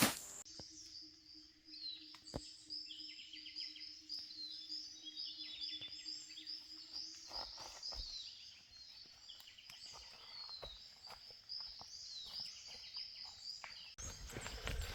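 Small birds chirping and singing, with quick repeated notes and short falling whistles. A faint low steady hum runs under the first half.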